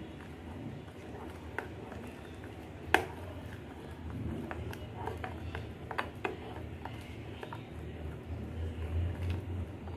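A spoon stirring thick tamarind-date chutney and spice powder in a glass bowl, with soft squelching and scattered clinks of the spoon against the glass, the sharpest about 3 s in and several between about 5 and 6.5 s. A low steady hum runs underneath.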